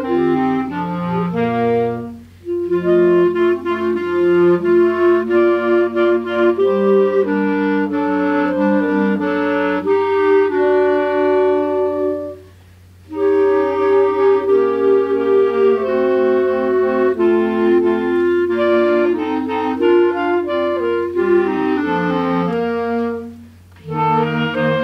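Clarinet choir of B-flat clarinets and a bass clarinet playing sustained chords in several parts. The music breaks off briefly between phrases three times: about two seconds in, about halfway through and near the end.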